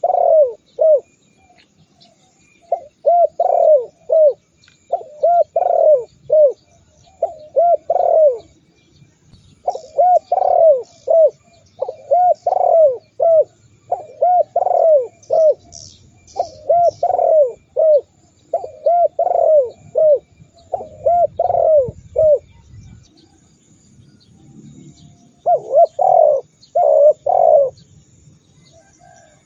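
Spotted dove cooing: short phrases of a few arching coos, repeated every second or two, with a pause of about two seconds near the end.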